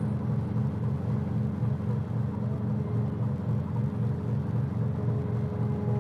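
Boat engine running with a steady low rumble and a fast, even throb, heard on board.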